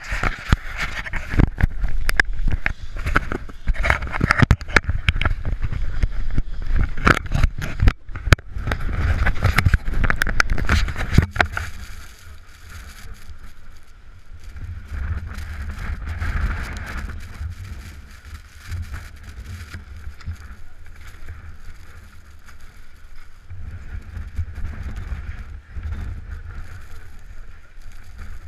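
Wind buffeting an action camera's microphone on snowy mountain terrain, with knocks and rubbing from the camera being handled for the first dozen seconds, then a quieter, steady low rumble.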